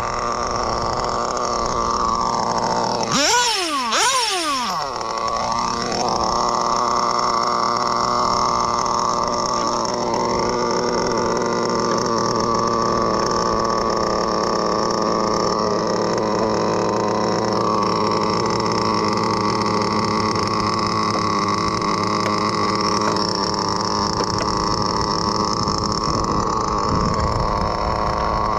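Small .12 nitro engine of an RC touring car running, revving sharply up and down a few seconds in, then settling into a steady run.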